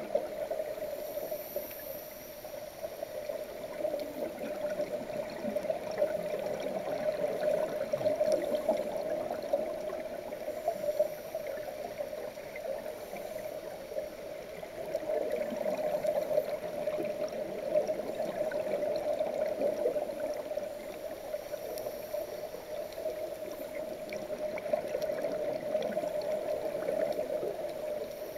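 Underwater ambience heard through a camera's waterproof housing: a steady muffled hum with gurgling bubbles from the divers' breathing and faint crackling, swelling and easing every few seconds.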